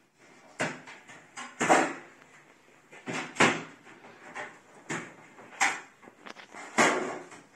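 Knocks and clatter of Neff oven casing panels being handled and fitted back in place: about seven separate sharp knocks spread across several seconds, with short quiet gaps between them.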